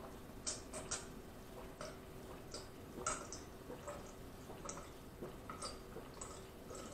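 Close-miked swallowing while drinking in one long draught from a glass mug: soft wet gulping clicks at irregular intervals, roughly twice a second.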